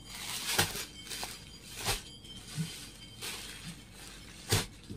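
Crinkling rustles of saree packaging as the packed sarees are handled, in about four short bursts with quieter rustling between them.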